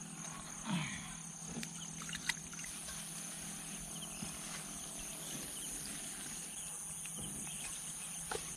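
Steady high-pitched trill of crickets and other insects in the field, with a higher insect band joining about a third of the way in, and a few faint clicks and rustles.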